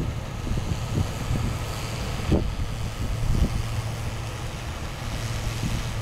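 A John Deere 7721 pull-type combine running as it harvests wheat: a steady low machine hum, with irregular wind thumps on the microphone.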